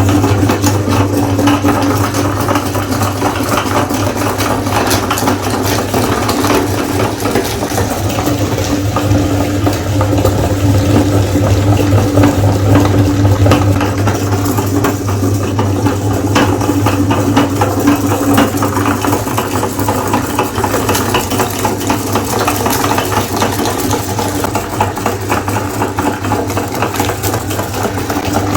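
Electric meat grinder running steadily with a deep motor hum, grinding ice cream bars, with continuous crackling from the frozen bars being crushed.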